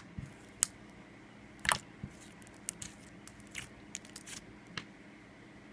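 Black glitter slime being pressed and poked by hand, giving a scattered string of short sticky clicks and pops. The loudest come about half a second in and just under two seconds in.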